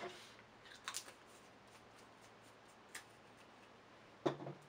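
Quiet room tone broken by a few small clicks and taps on a tabletop, the loudest a light knock about four seconds in.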